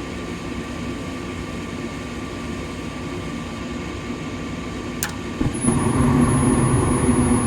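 Nordyne gas furnace running with its burners lit, a steady hum; the burners stay on instead of cutting out, showing the short cycling is fixed. About five seconds in there is a click and the sound steps up louder and fuller as the circulating blower comes on.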